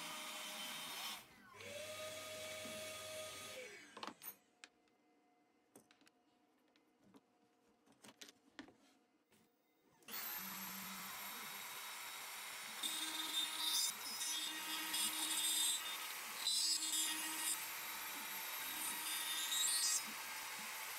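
Hobby CNC router spindle running an end mill through hardwood, with a steady whine and cutting noise. About four seconds in it drops away to a few faint clicks. It resumes around ten seconds in, with louder surges of cutting in the second half.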